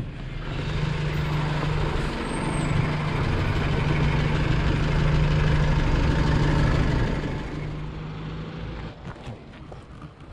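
A heavy road vehicle's engine running close by with a steady low hum. It builds over the first couple of seconds, holds loud, then fades away after about seven seconds.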